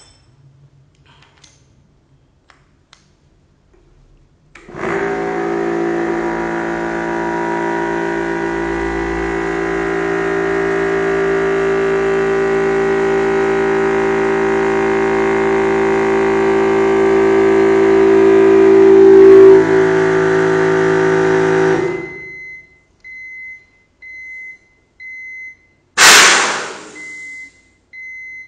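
A Yong Heng PCP high-pressure air compressor starts about five seconds in and runs steadily for about seventeen seconds, growing gradually louder, then shuts off. A short electronic beep then sounds about once a second, and near the end a loud hiss of air vents for about a second.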